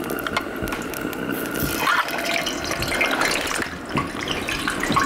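Potatoes frying in a pan of hot oil: a steady crackling sizzle and bubbling.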